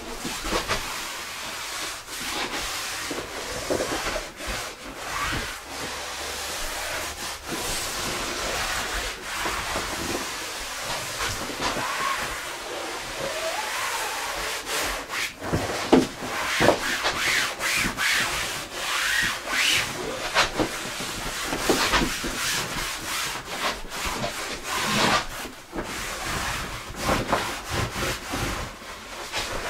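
Damp cloth wiping and rubbing over the PVC hull of an inflatable boat in irregular strokes, with occasional short squeaks of cloth on vinyl.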